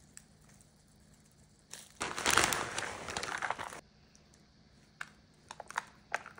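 Loud crinkling rustle lasting about two seconds as shredded cheese is piled into a disposable aluminium foil pan, followed by a few faint ticks and rustles as hands spread the cheese.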